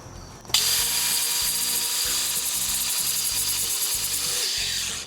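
A power tool grinding the edge of a steel lawn mower blade, starting abruptly about half a second in, running steadily with a faint whine for about four seconds, then stopping.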